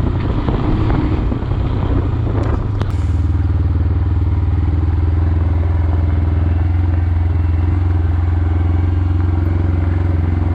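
Motorcycle engine running with a steady, even low hum, after a rougher, noisier first few seconds with a couple of sharp clicks.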